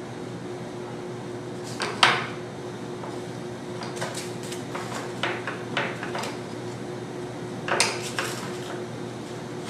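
Small wooden propeller parts (hub, dowels and blades) knocked and set down on a wooden workbench. There is a sharp knock about two seconds in, a run of lighter taps in the middle and another clatter near the end, over a steady low hum.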